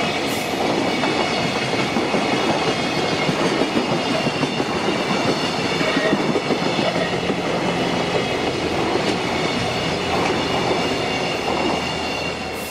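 Freight train of container wagons rolling through a level crossing, wheels clickety-clacking over the rail joints, with the crossing's warning bell ringing steadily over it.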